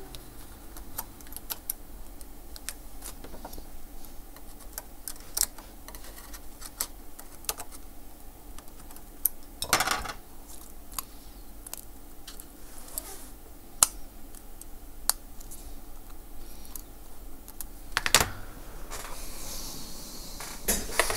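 Scattered small clicks and taps of metal tools and tiny parts as an iPhone 6s Plus logic board is mounted back into its housing, with louder knocks about ten and eighteen seconds in.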